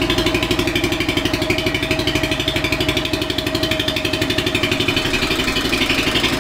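Turbocharged, fuel-injected Predator 420cc single-cylinder engine running steadily at idle, with a rapid, even pulse of firing strokes.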